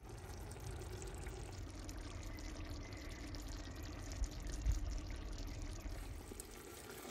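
Chicken karahi simmering in a clay pot over a charcoal grill, a steady liquid bubbling hiss over a low rumble, with a couple of soft knocks a little past halfway.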